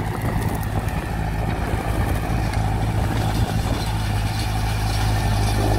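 Farm tractor engine running steadily while pulling a working Massey Ferguson MF 167V round baler, the engine hum growing slightly louder as the rig draws near.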